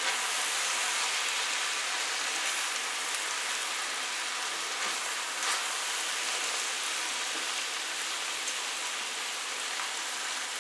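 Chicken, diced vegetables and couscous sizzling in a stainless-steel frying pan over medium heat as they are stirred with a wooden spoon: a steady frying hiss.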